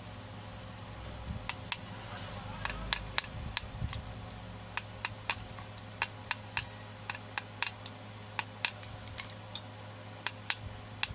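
Sharp clicks at an uneven pace, roughly two a second, from a tool working the commutator hooks of a blender's rewound armature closed over the wire ends.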